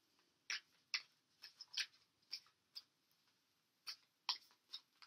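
Tarot cards being handled and drawn from the deck: about ten short, faint card clicks and snaps at irregular spacing.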